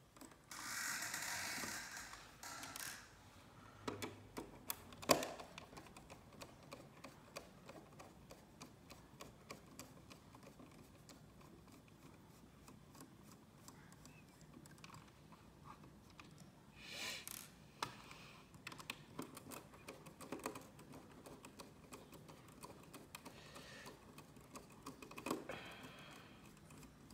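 Small T9 Torx screws being backed out of a plastic router case with a precision screwdriver: a run of faint, irregular small clicks and ticks, with a few brief scraping noises.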